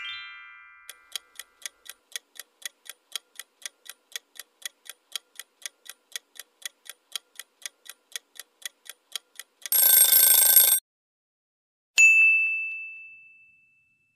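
Quiz countdown sound effects: a chime fading out, then a clock ticking about four times a second for some nine seconds. A loud buzzer sounds for about a second, then a single bell ding rings out.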